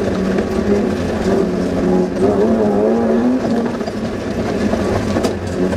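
Suzuki Vitara's engine heard from inside the cab on a rough off-road track, its pitch rising and falling as the driver works the throttle. A few sharp knocks come through from the bumpy ground, the clearest near the end.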